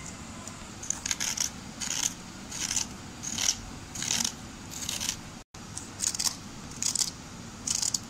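Kitchen knife peeling the skin off a round green gourd (kaddu), a short rasping scrape with each stroke, about ten strokes. There is a brief break about halfway through.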